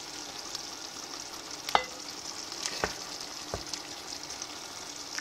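Pan of bolognese sauce simmering on the stove with a steady high hiss. Three light knocks, the first with a short ring, as the sauce is spooned with a wooden spoon onto a ceramic plate of macaroni.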